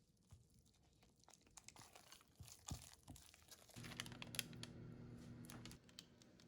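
Faint crinkling and crackling handling noises, a scatter of small sharp clicks, with a low steady hum that starts about halfway through and stops about two seconds later.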